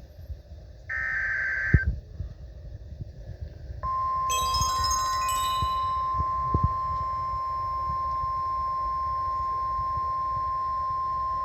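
The last burst of an Emergency Alert System SAME header, a short buzzy data tone, about a second in. After a pause of about two seconds comes the steady 1050 Hz NOAA Weather Radio warning alarm tone, one unbroken pitch that starts about four seconds in. A brief cluster of chime-like tones sounds over its first second or so.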